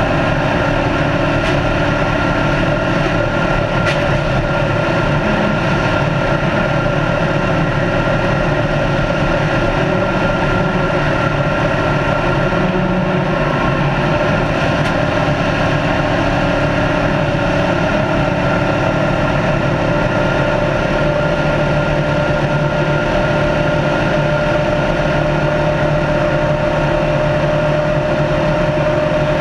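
Race car engine running at speed with a steady, unchanging note, heard on board together with road and wind noise.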